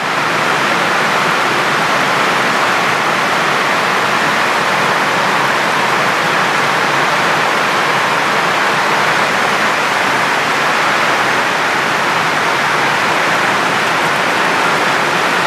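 Heavy tropical downpour: a loud, steady hiss of rain that does not let up.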